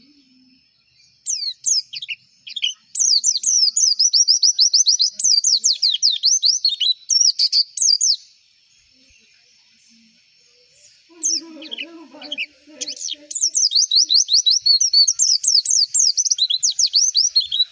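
Pleci (white-eye, Zosterops) singing two long runs of rapid, high, chattering notes, each several seconds long, with a pause of about three seconds between them.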